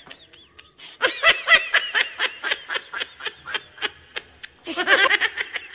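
Laughter: a quick run of repeated ha-ha pulses that starts about a second in and lasts two or three seconds, then a shorter run near the end.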